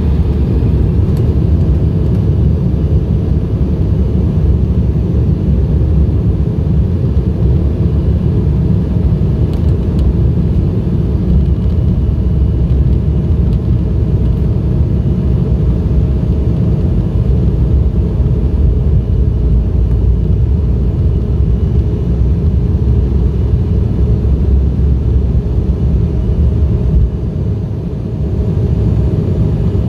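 Cabin noise of an Embraer 175 on its takeoff roll, heard from a window seat beside the wing. Its CF34 turbofan engines run at takeoff power with a faint steady tone over a heavy, even rumble from the wheels on the runway. The rumble eases briefly a couple of seconds before the end.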